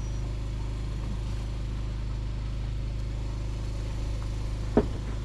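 An engine idling steadily with a low, even drone, and one sharp knock near the end.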